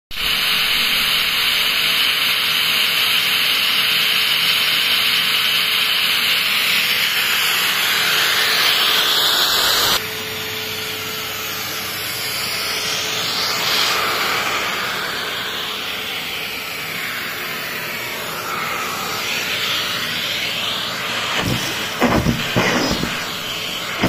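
Numatic Henry Xtra vacuum cleaner running with a steady hiss of suction; the sound drops abruptly about ten seconds in and carries on softer. Near the end, several sharp clicks and knocks as debris is sucked up the nozzle.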